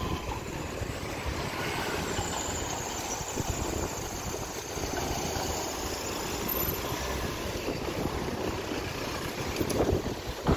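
Steady low rumble and road noise of a moving vehicle in city traffic, with a couple of louder knocks near the end.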